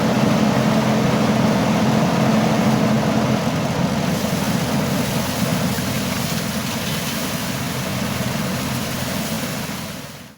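A small engine running steadily, fading out near the end.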